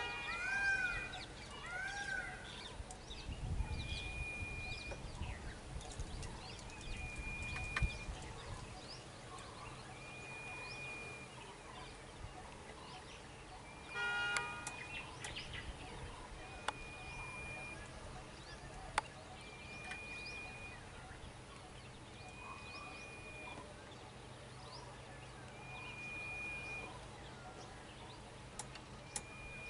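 Two short horn toots, one at the start and one about halfway through, over a bird repeating a short high whistled note every few seconds. A low rumble runs for a few seconds early on.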